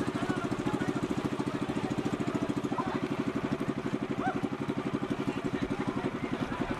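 Small boat engine running steadily at low speed, a rapid even putter of about ten beats a second.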